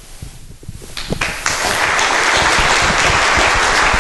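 Audience applauding at the end of a talk: a few scattered claps about a second in, quickly swelling into full, steady applause.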